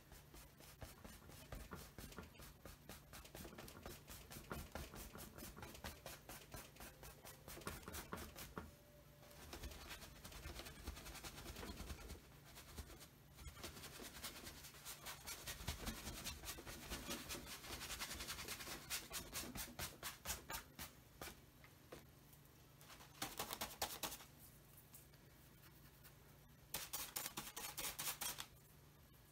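Bristle paintbrush scrubbing and dabbing paint onto a stretched canvas in quick, repeated scratchy strokes, with two louder bursts of fast scrubbing near the end.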